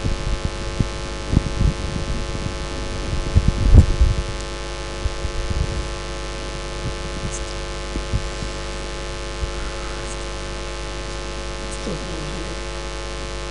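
Steady electrical mains hum from the mosque's microphone and sound system, with scattered low thumps in the first half.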